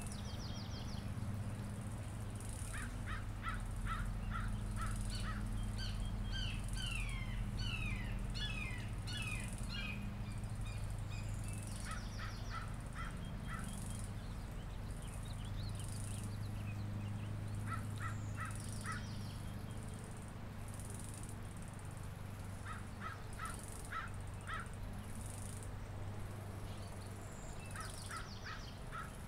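Birds calling in spring: several runs of about six short, rapid calls, and a spell of quick gliding songbird chirps a few seconds in. Under them runs a steady low rumble, with faint high buzzes repeating about once a second.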